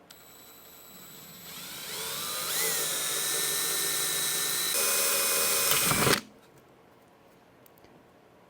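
Power drill with a 5/32-inch bit enlarging holes in a fiberglass fairing: the motor spins up in a rising whine over the first two seconds, runs steadily, steps up a little near five seconds, then cuts off suddenly about six seconds in.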